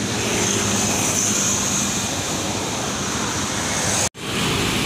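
Road traffic: motorcycles and cars passing along a road, with a steady engine hum under a hiss of tyres and wind. The sound cuts out for an instant about four seconds in, then resumes.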